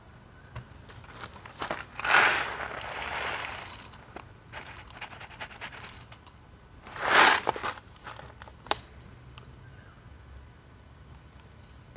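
Foil coffee bag crinkling in two bursts as it is handled and whole coffee beans are poured out to be weighed, with a few sharp clicks of single beans.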